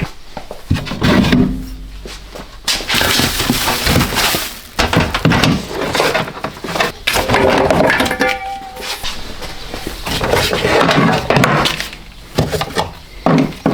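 Irregular knocks, thumps and clatter of gear and wooden items being handled and moved out of a small camper, with a brief squeak about eight seconds in.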